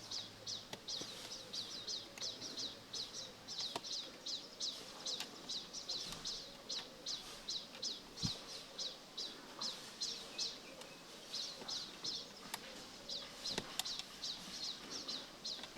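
A small bird chirping over and over, short high chirps about three a second, with a few faint clicks.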